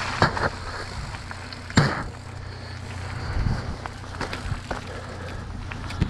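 Mountain bike rolling over wet gravel and onto wet pavement: a steady tyre noise with the bike rattling, and a few sharp knocks, the loudest just under two seconds in.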